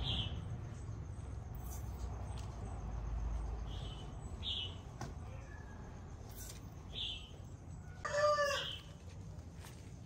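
Short, high bird chirps every second or so, and about eight seconds in a loud, brief chicken call with a clear pitch.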